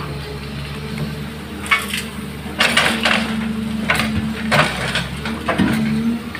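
Caterpillar hydraulic excavator's engine running steadily while a bucket load of soil pours into the steel bed of a dump truck, heard as several bursts of rattling and clattering dirt and stones from about two seconds in.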